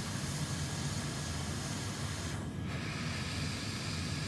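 Hot air rework station blowing on a circuit board to desolder corroded components: a steady hiss of air over a low fan hum, thinning briefly about two and a half seconds in.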